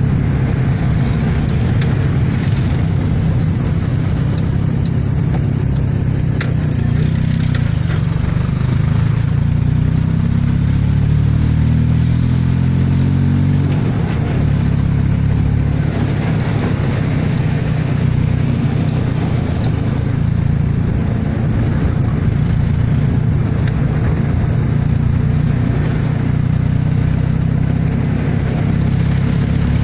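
Suzuki Alto engine, converted from fuel injection to a carburettor and distributor CDI ignition, pulling the car along the road, heard from inside the cabin with road noise. The engine note climbs for several seconds about a third of the way in, then drops back and runs steadily.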